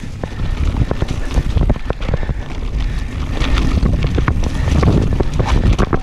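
Mountain bike riding fast over rough trail: wind rushing over the microphone, with a continual run of short knocks and rattles from the bike hitting bumps.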